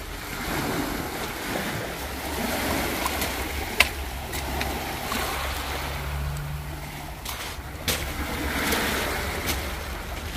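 Small waves washing onto a pebble beach, with wind on the microphone and a few sharp clicks.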